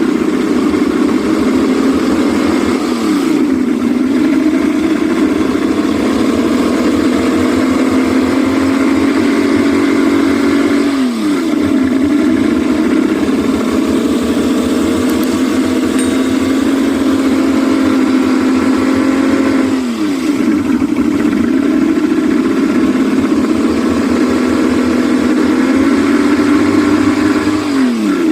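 Yamaha 200 hp outboard motor running steadily at high revs during a test run. About every eight seconds its pitch dips sharply for a moment and climbs back, four times in all.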